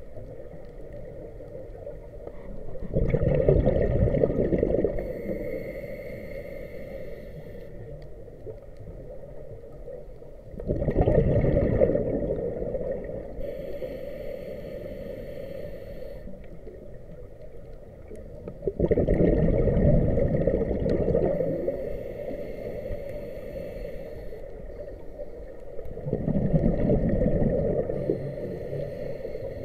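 Scuba diver breathing through a regulator underwater. There are four exhalations, each a rush of bubbles lasting two to three seconds, about every seven to eight seconds, with a fainter steady hiss between them.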